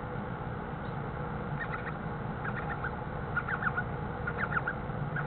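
An owlet about to hatch, peeping from inside its egg: short, high chirps in little clusters of three or four, repeating every second or so, starting about a second and a half in, over a steady low hum.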